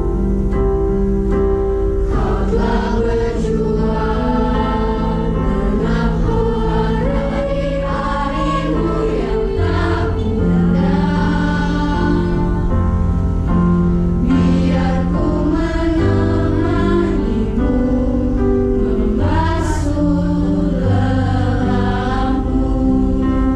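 School youth choir singing a song together, accompanied by an electronic keyboard and a guitar. The voices come in about two seconds in over held keyboard chords.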